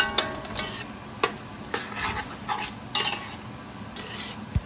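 A spoon stirring in a cooking pot: a sharp ringing clink at the start, then irregular scraping and clattering against the pot.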